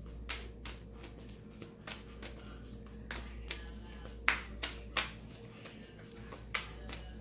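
Tarot cards being handled and shuffled: a run of irregular soft clicks and slaps, with one sharper slap about four seconds in.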